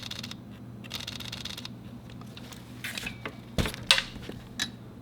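Fujifilm X-series mirrorless cameras' mechanical shutters firing: short bursts of rapid continuous shots in the first couple of seconds, then several single shutter clicks from about three seconds in, the loudest two close together near the four-second mark. A low steady hum runs underneath.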